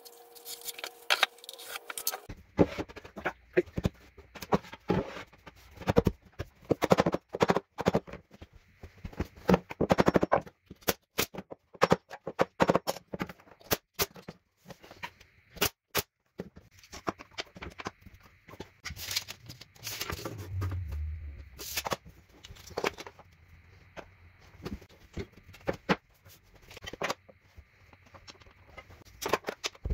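Hand tools and wood pieces being handled on an OSB stair tread: irregular knocks, taps and clicks, with a duller low thump about twenty seconds in.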